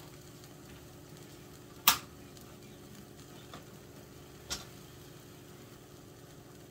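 Vegetables stir-frying in a skillet, stirred with a wooden spatula: a faint steady sizzle, with a sharp knock about two seconds in and a softer one about four and a half seconds in.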